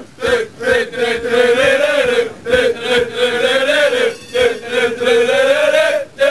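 A crowd of male football fans chanting a tune together in unison, one long held melody line with a few short knocks among it.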